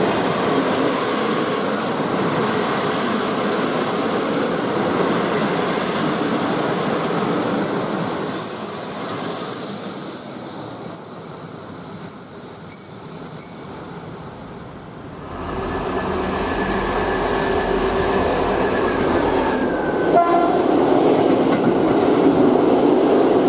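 A train running through a railway station: a continuous rumble and rail noise, with a thin high steady tone held for several seconds in the middle. After a brief dip, a deeper, louder train sound builds up and grows again near the end.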